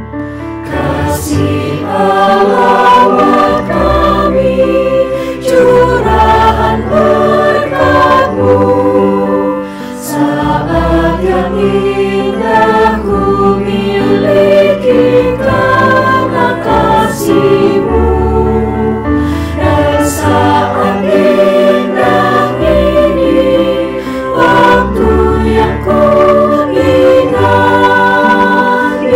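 Mixed choir of male and female voices singing a Christian hymn in parts.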